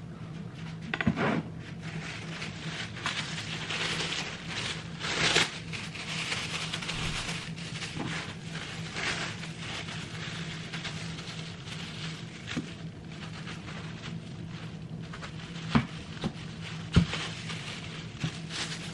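Plastic wrap crinkling and rustling around a wedge of pumpkin while a kitchen knife cuts into the pumpkin, with a few sharp knocks of the knife on a plastic cutting board, one about a second in and two near the end. A faint steady low hum runs underneath.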